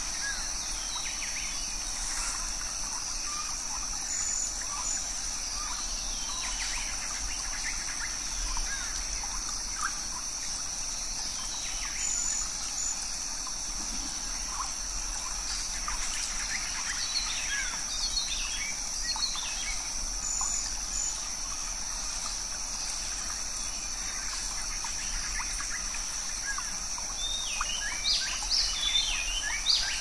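Rainforest ambience: a steady wash of running water under a constant high-pitched insect drone, with short bird chirps and calls scattered through it, busiest about halfway and again near the end.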